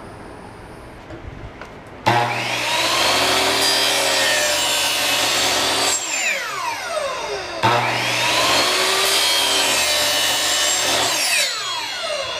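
Electric power saw cutting 1.5-inch Schedule 40 PVC pipe. The saw starts abruptly about two seconds in, runs for about four seconds and winds down with a falling whine. It then starts again, runs for about four seconds and winds down once more near the end.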